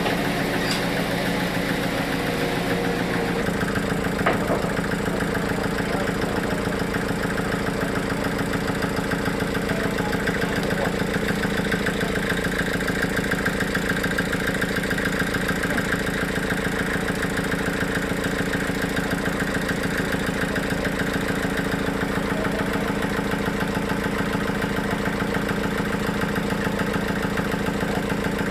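Sawmill's engine running steadily at a constant speed, with one sharp knock about four seconds in.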